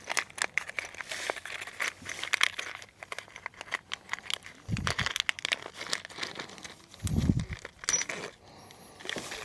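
Plastic hardware baggie crinkling as it is opened and handled, with scattered clicks and two dull low thumps, about five and seven seconds in.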